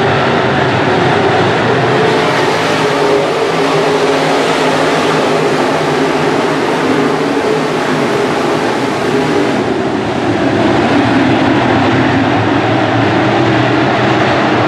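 A field of IMCA Modified dirt-track race cars running at speed together, their V8 engines making a steady, loud drone as the pack circles the track.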